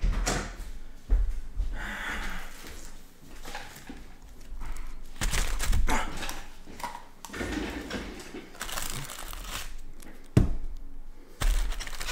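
Rustling and crinkling from handling objects, with several sharp knocks and thuds. The loudest knock comes about ten seconds in.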